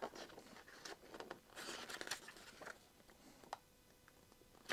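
Faint rustle of paper pages being turned in a booklet, with a single soft tap about three and a half seconds in.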